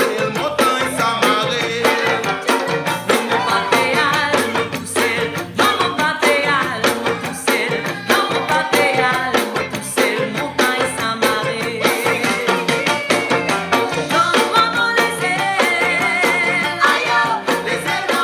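Background music with percussion.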